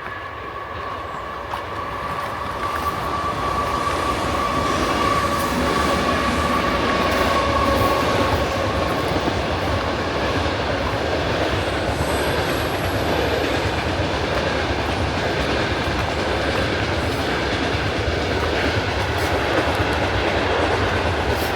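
A train passing close by, its wheels clattering on the rails; the noise builds over the first few seconds and then holds steady. A thin, steady squeal sounds through the first half and fades out about nine seconds in.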